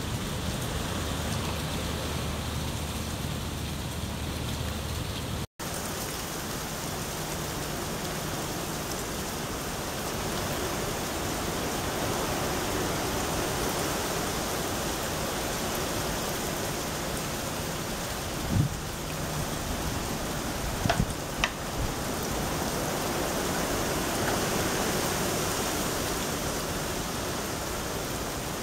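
Steady rain falling during a hurricane's outer rain bands, an even hiss throughout. About two-thirds of the way through there is one sharp knock, then a few short sharp sounds.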